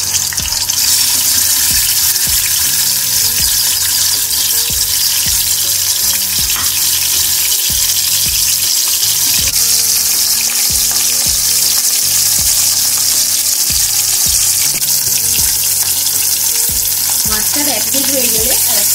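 Bhetki (barramundi) fish steaks sizzling steadily as they fry in hot mustard oil in a kadai.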